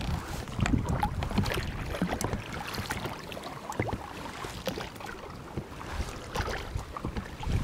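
Small inflatable boat on the water: irregular light knocks and splashes from the hull and gear, over a low rumble of wind on the microphone.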